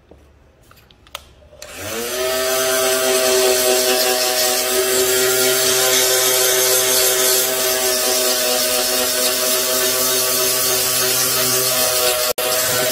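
A small electric power tool's motor starts about one and a half seconds in, spins up and runs at a steady speed, with a hiss from the pad working the steel blade. The sound cuts out for an instant near the end.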